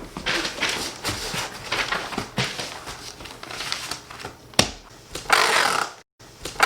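A cardboard box being closed: flaps rustling and scraping, a sharp snap about four and a half seconds in, then louder rasping noises near the end.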